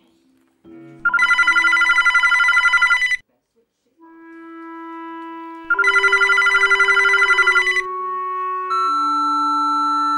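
A telephone ringing twice, each ring a rapid trilling burst about two seconds long. Held musical notes sound between and after the rings.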